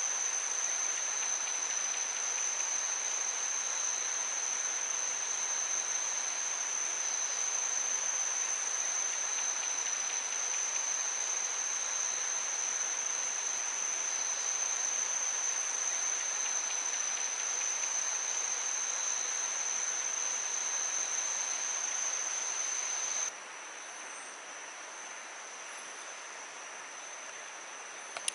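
Tropical forest insect chorus: a steady, high-pitched insect drone over a hiss of many insects calling. About 23 seconds in it drops suddenly and carries on more quietly.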